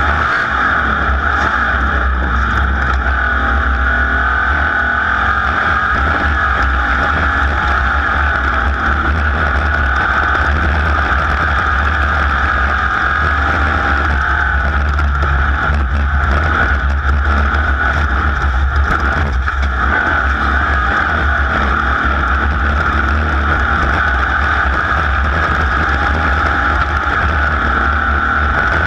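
A race vehicle's engine running hard without a let-up, heard from on board, with a steady high drone over a deep rumble.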